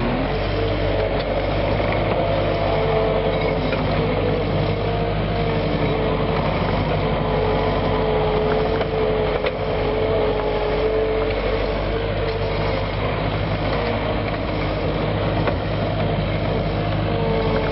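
Takeuchi TL8 compact track loader's diesel engine running steadily as the machine drives and spreads gravel, with a steady whine over the engine note.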